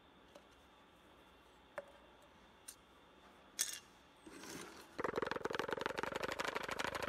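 A few light clicks of thin aluminium drink cans being handled. Then, about five seconds in, a homemade free-piston Stirling engine built from drink cans starts a loud, fast, even pulsing: the engine is running.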